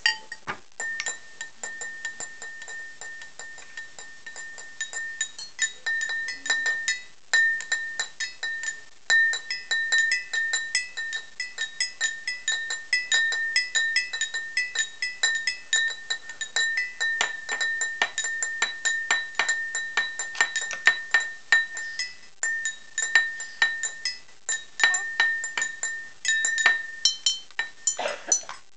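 A spoon banged over and over on a bowl, several quick strikes a second, each hit ringing with a clear tone.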